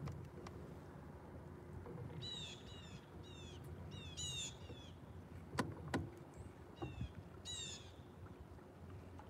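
A songbird calling: quick runs of high, down-slurred chirps, a few notes each, from about two seconds in to five seconds, and again about seven seconds in. Two sharp clicks come in between, about five and a half and six seconds in.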